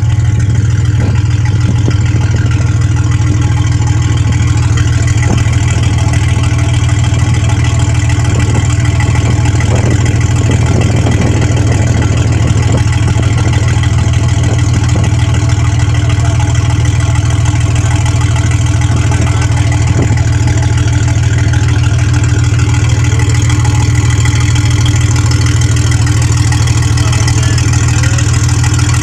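A river boat's engine running steadily, heard from on board as a loud, unbroken deep hum.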